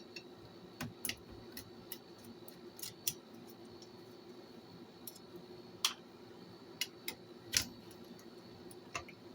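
Irregular sharp clicks and small clinks of tools and metal parts being handled while the answering machine is taken apart, over a faint steady hum.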